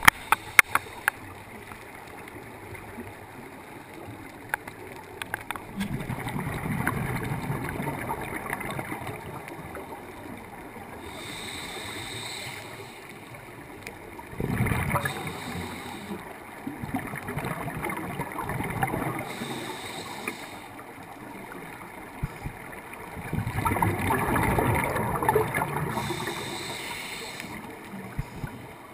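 Scuba regulator breathing heard underwater: a high hiss on each of four slow inhalations, and a low rumbling gush of exhaled bubbles between them. A few sharp clicks at the start.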